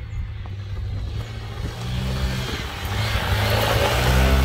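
Single-cylinder Royal Enfield Himalayan motorcycle riding along a dirt trail, its engine getting louder as it comes close and loudest just before the end.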